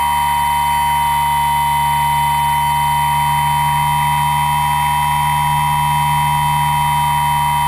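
Model aircraft's motor and propeller running at a steady high-pitched whine, heard from the camera riding on board.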